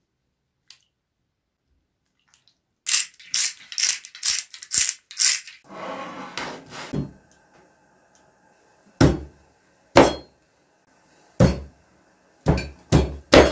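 A quick run of about seven sharp clicks, then a rough scrape as a wooden cutting board is set down on a wooden table. From about nine seconds in, a heavy cleaver chops through sweet corn cobs into the board: six heavy thuds, the last three close together.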